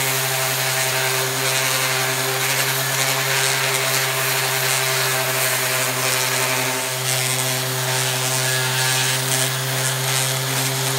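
DeWalt random orbit sander running steadily with a 220-grit disc, sanding rust, mud and old black paint off a steel axe head: a steady motor hum under a gritty hiss.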